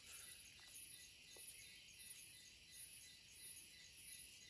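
Near silence with a faint, steady, high-pitched insect chorus pulsing evenly in the background.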